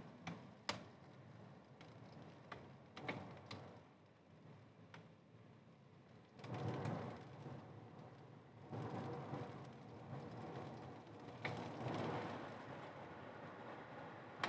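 Light rain heard through a window: irregular ticks of raindrops striking the glass and sill, with longer swells of faint city noise, the biggest about six seconds in and another running from about nine to thirteen seconds.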